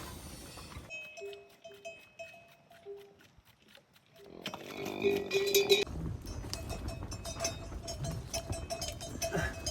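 Bells worn by livestock ringing and clanking on and off as the animals move, with a quiet spell in the middle.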